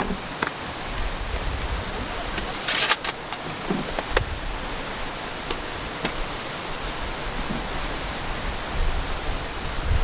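A steady rushing outdoor noise, like running water, with a few light clicks and a brief rustle about three seconds in as plastic and paper camping items are handled and set down.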